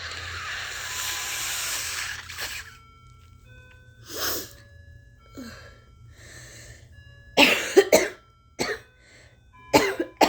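A woman with a cold blowing her nose in one long rush, then a few breaths, then a run of phlegmy coughs about seven seconds in and two more near the end.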